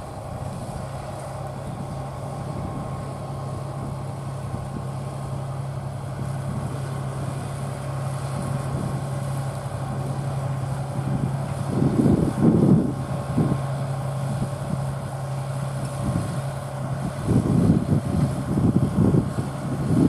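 Deutz-Fahr Agrotron 7250 TTV tractor's six-cylinder diesel running steadily under ploughing load, pulling a four-furrow mounted plough and growing slowly louder as it comes closer. Wind buffets the microphone briefly about twelve seconds in and again near the end.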